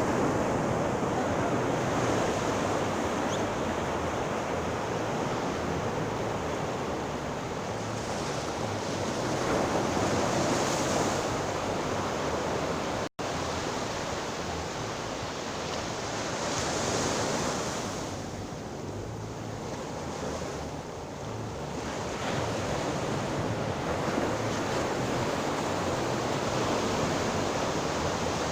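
Sea surf: waves washing onto the shore in a steady rush that swells and ebbs every few seconds. About halfway through, the sound drops out for a split second.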